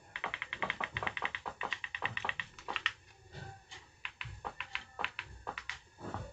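Remote control buttons clicking: two quick runs of rapid presses in the first three seconds, then single presses about every half second, with a few dull low thumps.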